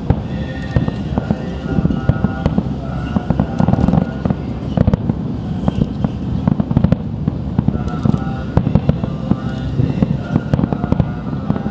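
Fireworks display: a dense, continuous run of booming shell bursts and sharp crackling bangs. Short tonal sounds, probably music, come and go in the background.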